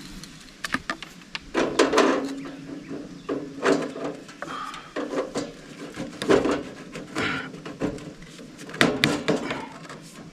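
Irregular clicks, knocks and clatters of hand tools and hardware being handled during electrical work.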